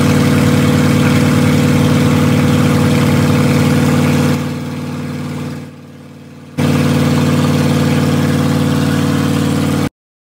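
Pickup truck engine running at a steady, even idle, a deep drone. It dips for about two seconds midway, returns unchanged, and cuts off suddenly near the end.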